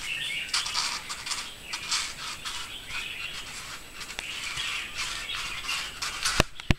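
A rubber tyre scraping and dragging over grass and concrete as a bull terrier carries it in its mouth, in uneven scuffs, with two sharp knocks near the end.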